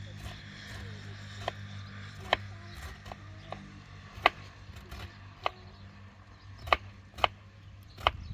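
A knife chopping vegetables on a wooden board in slow, uneven strokes, roughly one a second, over a steady low hum.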